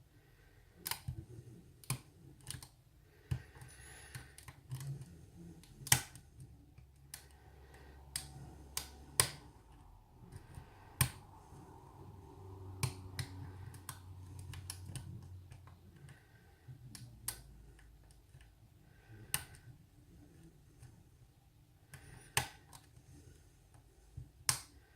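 Sharp, scattered metal clicks and taps of a lock pick and tension wrench working the pin stacks of a brass mortise cylinder during single-pin picking, coming irregularly, a click every second or two.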